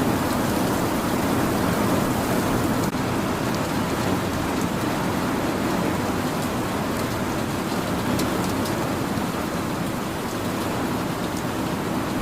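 Steady rain falling, an even hiss with a few sharper ticks of single drops.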